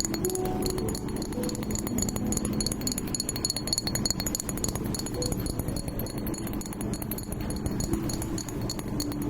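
Slime being stirred and worked by hand, a dense steady stream of small clicks and crackles.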